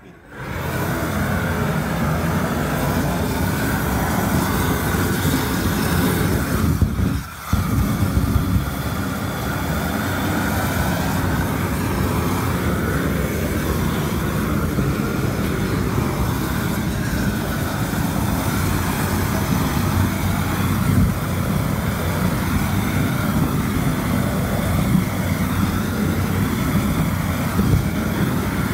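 Propane gas torch burning with a loud, steady roar as it singes a slaughtered pig's hide. The roar dips briefly about seven seconds in, then carries on.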